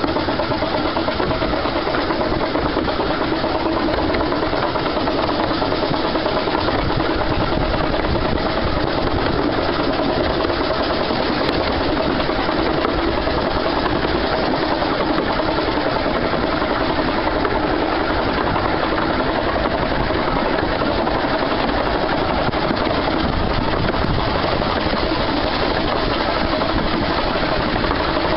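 Steady running noise of a 15-inch gauge steam train heard from a carriage window while under way: wheels on the rails and the 2-6-4T tank locomotive working ahead, loud and unbroken.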